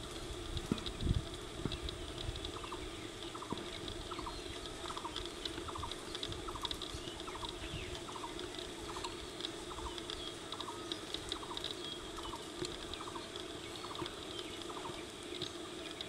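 Oriental magpie-robin bathing in a puddle, splashing water with its wings and body, loudest in the first second or so. Behind it another bird repeats a short, even note about once a second.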